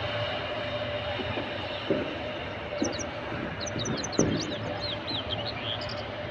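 Steady drone of aircraft noise with a low hum, broken by three short dull thumps. Over the second half, quick high bird chirps and twitters come in.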